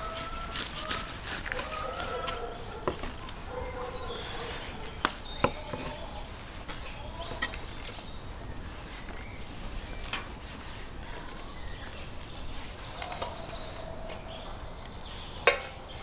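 Knife slicing boiled beef tongue on a wooden cutting board, with a few separate sharp knocks of the blade against the board. Faint animal calls in the background near the start and again about two-thirds of the way in.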